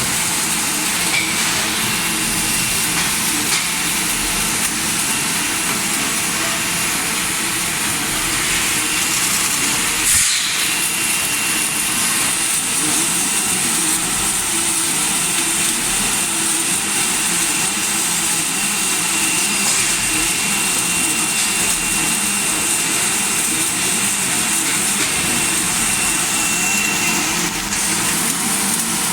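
Steady industrial machinery noise with a constant hiss and a faint high whine, broken by a single knock about a third of the way through.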